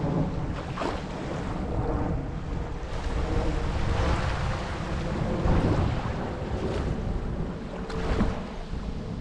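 Gulf of Mexico surf washing onto the beach in swells every second or two, with wind buffeting the microphone and a faint steady hum underneath.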